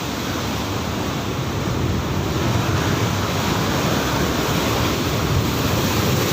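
Rough, heavy sea surf: big waves breaking and washing without a break, with wind noise mixed in.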